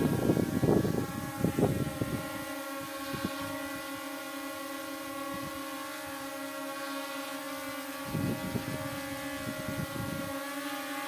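Brushless motors and propellers of an S9S quadcopter drone in flight, giving a steady whine of several even tones. Irregular low rumbling comes in bursts during the first two seconds and again around eight to ten seconds in.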